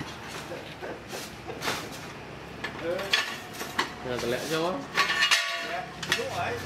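Scattered metallic clinks and knocks of tools and bike parts being handled, with the loudest clinks about two, three and five seconds in, and brief faint voices around the middle.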